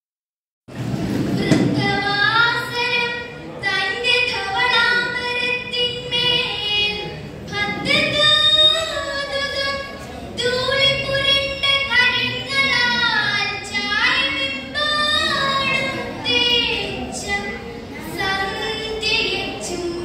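A girl's unaccompanied solo voice reciting a Malayalam poem in the sung kavitha style, with melodic held and gliding notes, beginning after a brief silence.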